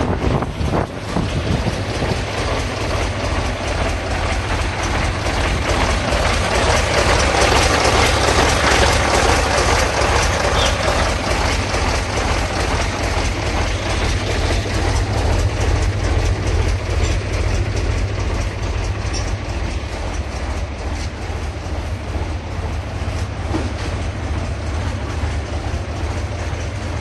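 YaMZ-236M2 V6 diesel engine of a MAZ-5551 truck running, a fast steady low throb, swelling somewhat louder for a few seconds about a quarter of the way in.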